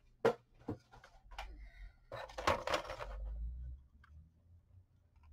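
Handling noise on a craft table: a few light taps and clicks as a plastic tool is set down, then about a second of rustling and scraping as a paper-covered book is picked up and moved, followed by low knocking handling noise.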